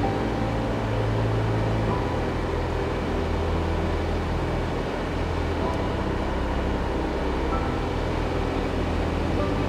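Slow background music with long, low bass notes that step to a new pitch every few seconds, over the steady road noise of a car driving.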